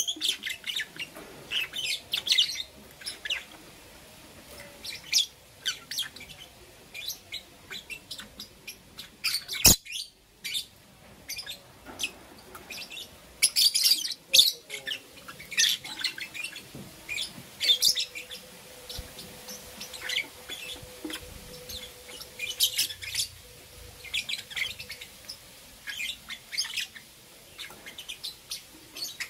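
Two lovebirds chirping: many short, high chirps in irregular bursts with gaps between. A single sharp click about ten seconds in is the loudest sound.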